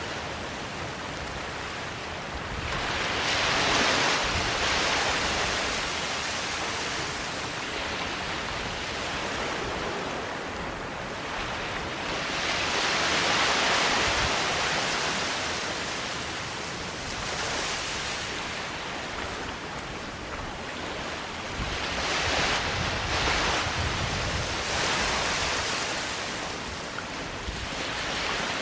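Small waves washing onto a sandy beach. The surf hisses steadily and swells louder five or six times as each wave breaks and runs up the sand, with a little wind rumble on the microphone.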